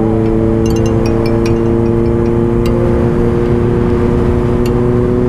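Motorcycle engine running steadily, its pitch rising slowly as it gathers speed.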